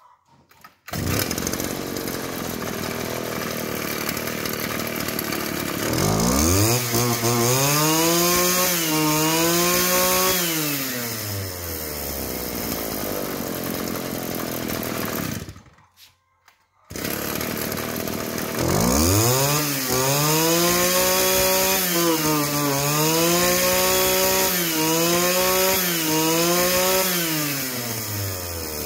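Small two-stroke brush cutter engine starting about a second in, running and being revved up and down several times. Near the middle it cuts out for about a second, then runs again and is revved up and down repeatedly in a test run.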